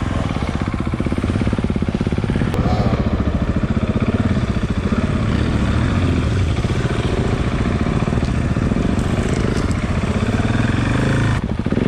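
KTM 690's single-cylinder engine running at low revs, a steady fast pulsing of its firing strokes heard close up from the bike itself.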